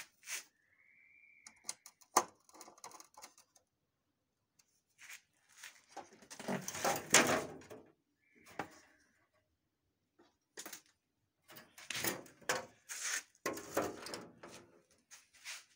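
Hands working on the top of a Xerox WorkCentre copier's scanner, refitting it: scattered clicks and knocks with longer spells of scraping and clatter, loudest about seven seconds in. A short squeak rises and falls about half a second in.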